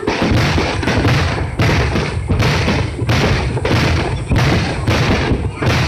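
Aerial firework shells bursting in quick, irregular succession: a string of deep booms, about one every half-second to second.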